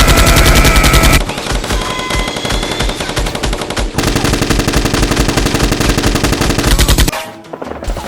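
Rapid automatic gunfire in long bursts, loudest in the first second and again from about four to seven seconds in, then breaking into scattered shots near the end.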